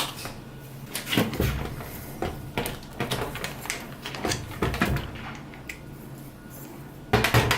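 Scattered clicks and knocks of a cordless drill with a right-angle screwdriver adapter being handled after the screw is driven, with a louder clatter near the end.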